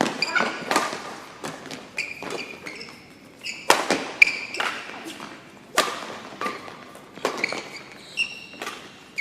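Badminton doubles rally in a sports hall: rackets striking the shuttlecock again and again at an uneven pace, with short squeaks of shoes on the court floor between the hits.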